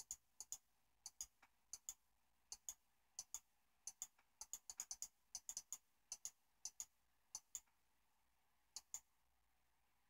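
Computer mouse button clicked over and over: some thirty short, sharp clicks at an irregular pace of roughly three a second, stopping about nine seconds in.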